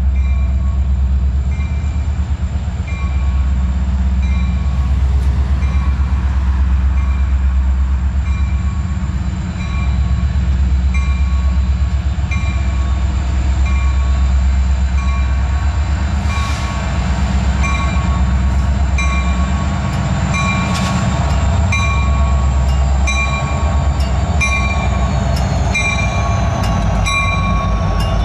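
Union Pacific diesel locomotives hauling a container train past, their engines giving a steady low rumble as they draw near. A bell rings steadily over it, about one and a half strikes a second.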